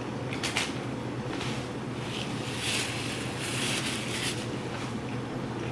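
Close-up eating sounds of a person biting and chewing a sandwich: several short, irregular chewing and mouth noises over a steady low hum.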